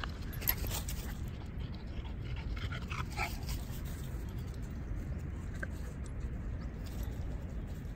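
Dogs panting close to the microphone, with a few short whines about three seconds in, over a steady low rumble.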